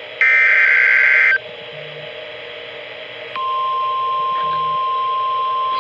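Emergency Alert System SAME header data burst, a loud digital screech lasting about a second, followed about two seconds later by the single steady 1050 Hz NOAA Weather Radio warning alarm tone, which starts and holds.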